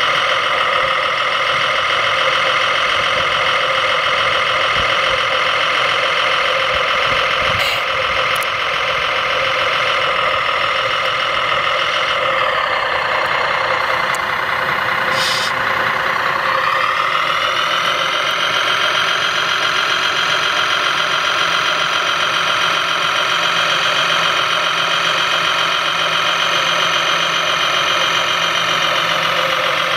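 An RC Liebherr LRT 1100-2.1 crane model running with a steady engine-like drone and motor whine as it hoists a load. About halfway through, the pitch sags and then climbs back. There is a short click or two.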